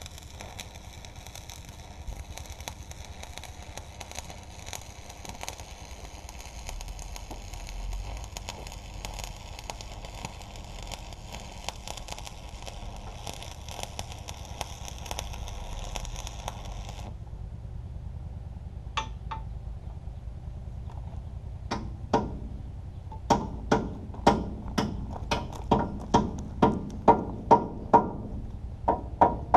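Electric arc welding on a steel frame: the arc gives a steady crackling sizzle for about seventeen seconds, then stops. A few seconds later a hammer strikes metal, first a couple of times, then in a regular run of ringing blows, about two a second.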